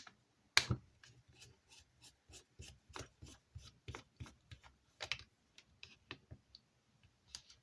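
Small precision screwdriver turning a tiny screw in a plastic hotspot case: a run of light clicks and scrapes, about three a second, with a louder knock near the start and another about five seconds in.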